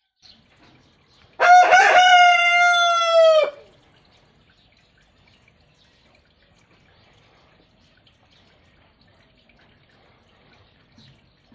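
A rooster crowing once, about two seconds long: a few quick broken notes, then one long held note that drops off sharply at the end.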